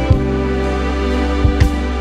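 Instrumental background music: held notes with a few sharper note attacks.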